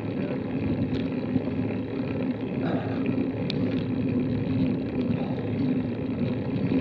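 Steady low rumble of wind and riding noise on a bike-mounted action camera's microphone during a slow uphill climb on a road bicycle.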